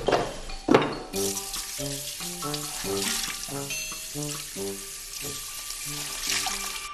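Kitchen tap running hard into a metal sink while a cloth is rinsed under it, over light background music with a bouncy bass line. Two sharp knocks in the first second come before the water starts.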